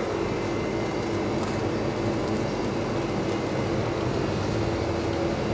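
Steady mechanical hum with a constant low tone running underneath.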